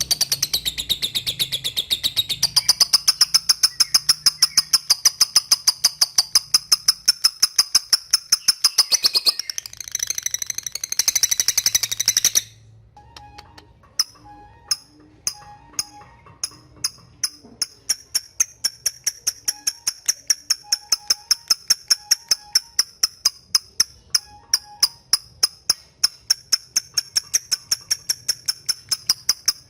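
Lovebird giving its rapid 'ngetik' call: a long string of sharp, high chirps repeated quickly, the kind of call used to challenge a rival lovebird. The string breaks off briefly about twelve seconds in, then starts again and settles into a steady fast beat.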